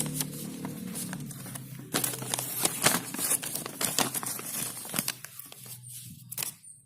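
Plastic packaging crinkling and tearing as it is handled and pulled open. The crackling is thickest from about two to five seconds in, then thins out.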